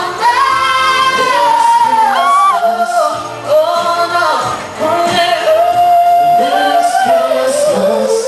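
Pop vocal group singing over backing music during a sound check, with long held notes that slide up and down in pitch.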